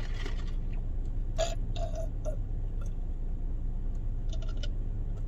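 A person drinking soda: a few short, soft gulping sounds between about one and a half and two and a half seconds in, over a steady low hum inside a car.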